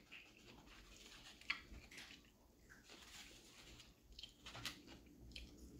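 Faint eating sounds: a mouthful of fried fish being chewed, with a few soft clicks and taps, the sharpest about a second and a half in.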